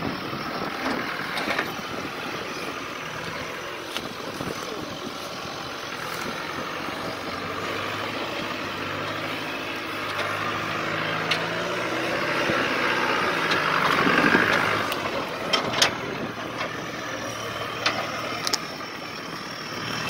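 Off-road competition vehicle's engine running under load as it works over rocks, swelling louder midway and then easing off, with a few sharp knocks near the end.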